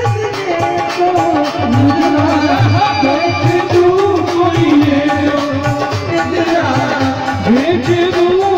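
Amplified Indian devotional bhajan music: a harmonium melody over a steady tabla beat, played through a sound-system speaker.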